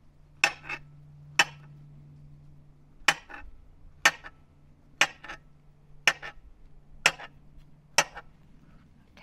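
Kitchen knife slicing through food and knocking on a cutting board: sharp knocks about once a second, some in quick pairs, over a faint steady low hum.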